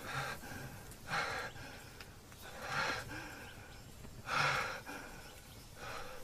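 A person breathing heavily, with loud ragged breaths about every second and a half.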